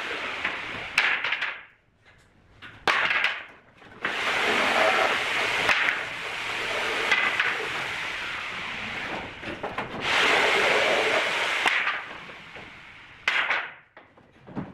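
Thin pallet-wood slats clattering and scraping as they are handled on a pile of loose boards: stretches of boards sliding over each other, broken by sharp wooden knocks.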